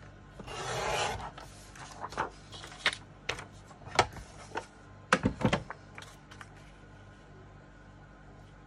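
Pattern paper being cut down to size and handled: a short rasping cut about a second in, then several sharp clicks and taps as the paper and cutting tool are handled.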